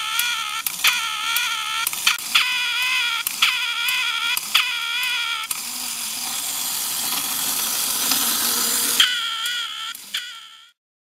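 Köhler No. 47 'Gigi' 1955 clockwork tin duck quacking over and over, about one wavering squawk a second, with sharp clicks of its mechanism between calls. Its wound-up clockwork then runs with a steady whir for a few seconds while it waddles. One more quack follows, and the sound stops shortly before the end.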